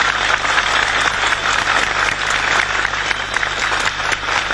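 Crowd applauding, a steady dense clapping.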